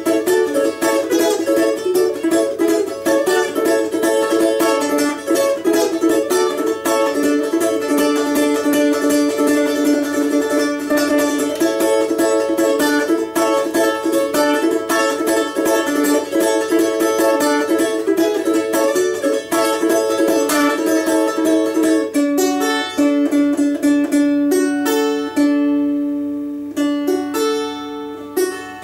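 Four-string balalaika with a doubled first string, tuned to open D major, strummed in rapid tremolo strokes over ringing chords. About 22 seconds in, the strumming thins to a few separate chords that are left to ring.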